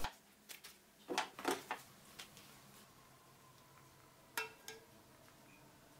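A few faint, short knocks and clicks of kitchenware being handled, a cluster of them in the first two seconds and a brief metallic clink about four and a half seconds in, with near silence between.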